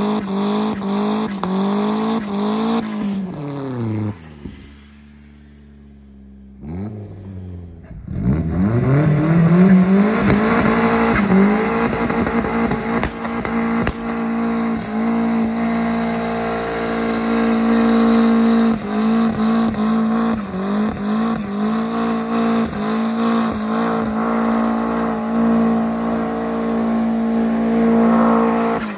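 Turbocharged 2004 Mazdaspeed MX-5 Miata four-cylinder, straight-piped through a side exit, held at high revs while its rear tyres spin and smoke in donuts. The revs drop about three seconds in and the engine goes quiet for a few seconds. It then revs back up and holds high, with a rough pulsing edge, before dropping again near the end.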